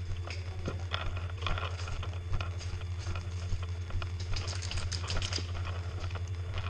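Footsteps crunching through dry leaf litter, with gear and clothing rustling and scraping close to a head-mounted camera, over a steady low hum. A quicker run of crackles comes about four and a half seconds in.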